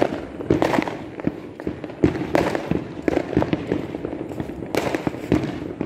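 Fireworks going off: a continual run of sharp bangs and crackles at irregular spacing, some coming in quick clusters.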